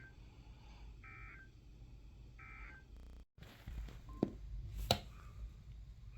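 Emergency Alert System end-of-message signal: short bursts of warbling SAME data tones, three of them a little over a second apart, closing a severe thunderstorm warning. After a brief cutout comes a low rumble with two sharp clicks.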